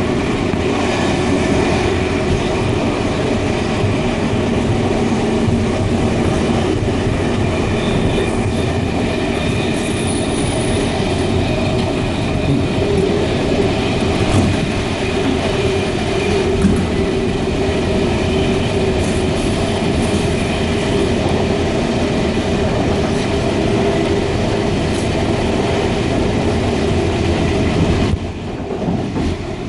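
Electric suburban train heard from inside the carriage while running at speed: a steady rumble of wheels on rails with faint steady whining tones running through it. It turns briefly quieter about a second before the end.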